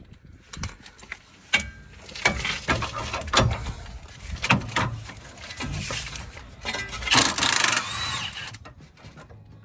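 Hand tools working a bolt on the Jeep's rear suspension: a series of sharp metallic clicks and knocks, with a denser rasping stretch about seven seconds in.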